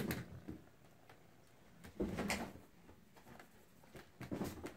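Bengal kittens scrabbling and bumping on a carpeted cat-tree bed while they play. A few short soft knocks and scuffles come at the start, about two seconds in, and again near the end.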